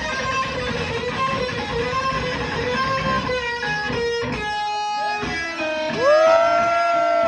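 Heavy metal band playing, led by distorted electric guitar. About six seconds in, a long guitar note bends up in pitch and is held.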